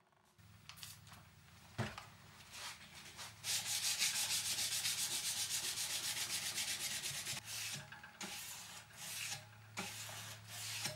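Abrasive paper on a hand-held sanding block rubbed back and forth along a Damascus steel knife blade. It starts with a few scattered strokes, then runs for a few seconds as a fast, steady rasp, then goes back to slower separate strokes near the end.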